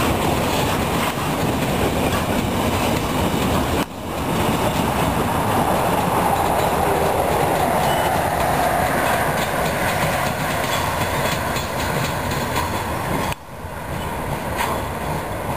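Freight train of tank wagons rolling past close by, with a steady noise of wagon wheels running on the rails. The sound breaks off briefly about four seconds in and again near the end.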